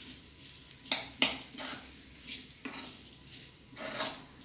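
A spoon stirring small steamed rice-flour dumplings (kuttipathiri) in a stainless steel pan, scraping and clinking against the metal several times at irregular intervals.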